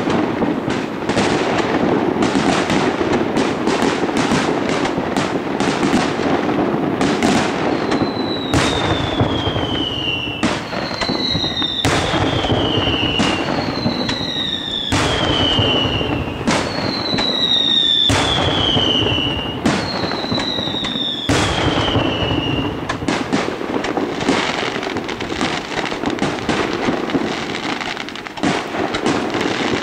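Aerial fireworks display: a dense run of shell bursts and bangs throughout, with five whistles, each falling in pitch, about two seconds apart through the middle stretch.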